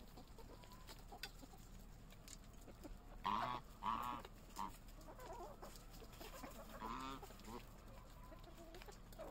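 A flock of hens and a white domestic goose calling while they feed: a pair of short, loud calls a little past three seconds in, then a few more short calls around seven seconds.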